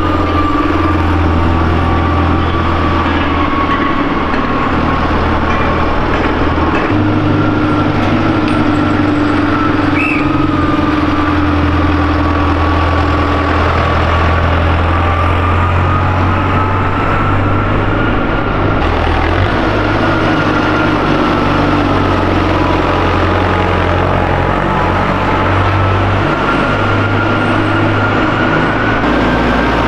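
Diesel farm tractor engine running steadily while towing a circus wagon, its low drone shifting a little in pitch from time to time, with a thin whine over it that drifts slowly up and down.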